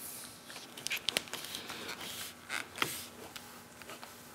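Plastic trim tool working a cable down into the groove of a rubber windshield molding: faint scattered scrapes and small clicks, with a few sharper ticks about a second in and again near three seconds.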